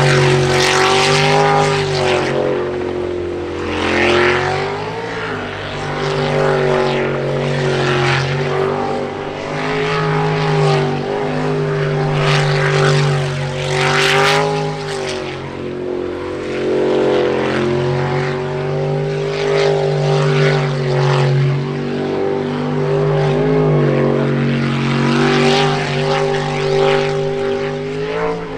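Sprint boat's jet-boat racing engine running hard at high revs, its pitch dipping briefly and climbing again several times.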